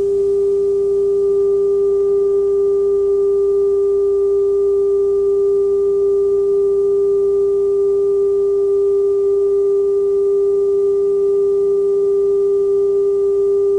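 Television test-pattern tone: one loud, steady, unbroken pitch with faint overtones above it.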